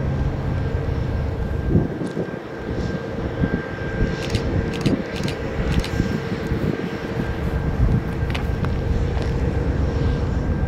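Norfolk Southern freight train's diesel locomotive running, a steady low rumble with a faint steady whine, and a few sharp clicks about four to six seconds in.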